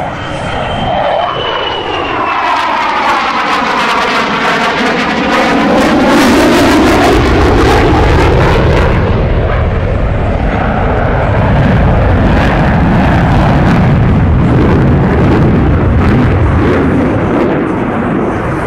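F/A-18E Super Hornet's twin General Electric F414 jet engines at high power in afterburner, a loud sustained jet sound with crackling. It gets louder and sweeps in pitch as the jet passes, loudest from about a third of the way in to halfway.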